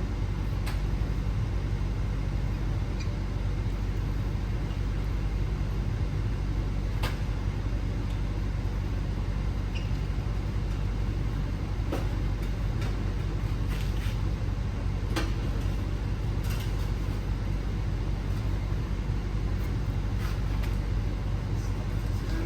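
Scattered light clicks and knocks of titanium exhaust pipes and fittings being handled and fitted under a car, over a steady low hum.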